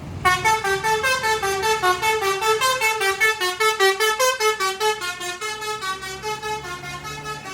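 Tour bus's Basuri 'telolet' musical air horn playing a fast tune of short notes, about six a second, growing fainter near the end.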